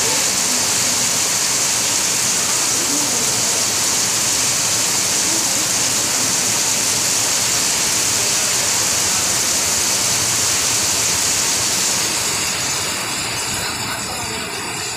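Heavy rain pouring down in a steady, loud hiss, growing a little quieter near the end.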